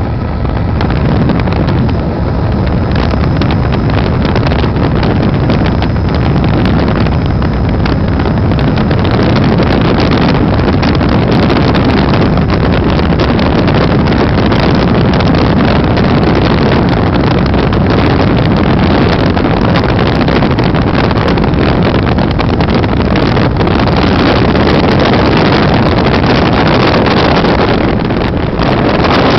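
Helicopter in flight heard from inside the cabin: loud, steady engine and rotor noise with wind on the microphone.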